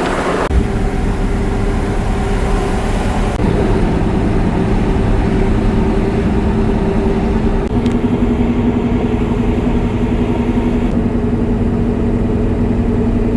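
A motor vehicle running, with a steady engine drone and road noise. Its tone shifts abruptly several times.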